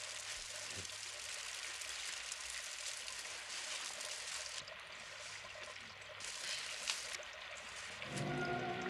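Steady rain falling, an even wash of water noise. Music comes in just before the end.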